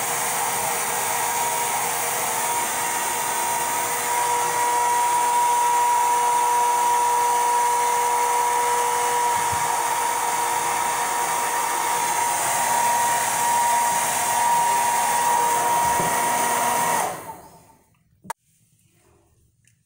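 Conair hand-held hair dryer running steadily with a constant whine, blowing on the lace front wig's edges to dry lace glue. It is switched off about 17 seconds in, followed a second later by a single click.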